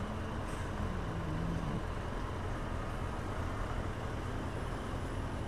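Motorcycle engines idling while stopped in traffic, a steady low rumble with background road noise.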